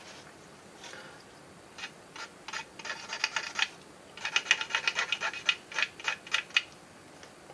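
A thin wooden stick scraped and rubbed against the side of a model box car, giving runs of quick rattling clicks: a shorter spell about two seconds in and a louder, longer one from about four seconds in.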